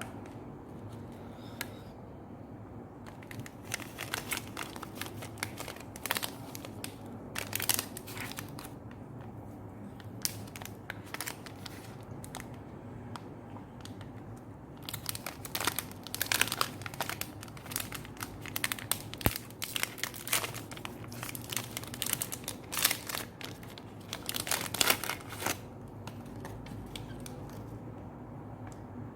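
Close-miked crinkling and tearing of ice cream packaging being handled and opened, in several bursts lasting a few seconds each, with quieter gaps between them.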